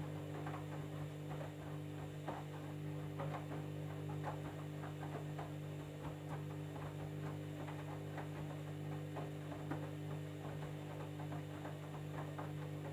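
Candy washing machine running on a jeans cycle: a steady hum with many small, irregular clicks over it.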